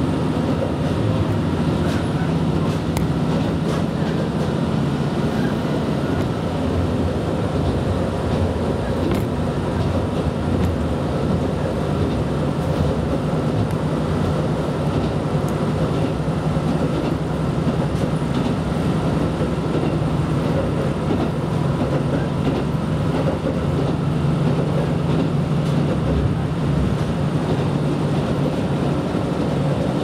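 Inside a KiHa 125 diesel railcar under way: a steady low diesel engine drone over the even rumble of wheels on rail.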